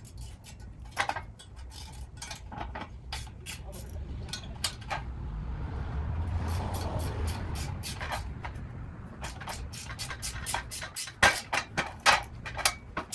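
Ratcheting wrench clicking in short irregular runs as the 12 mm bolts of a brake dust shield are snugged down, with a few louder metal clinks near the end. A soft rushing noise swells and fades in the middle.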